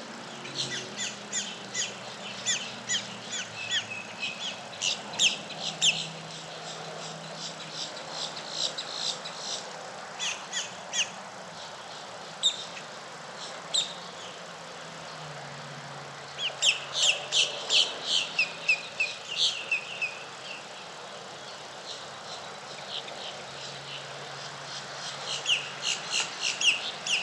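Songbirds chirping in several bursts of rapid, high, short notes, with pauses between the bursts, over a faint steady low hum.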